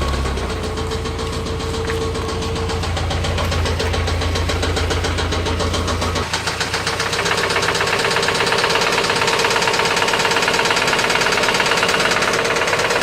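Mitsubishi Mighty Max mini truck engine running with a rod knock: a fast, even knocking that keeps time with the engine. About six seconds in the deep rumble drops away and the knocking gets brighter and a little louder.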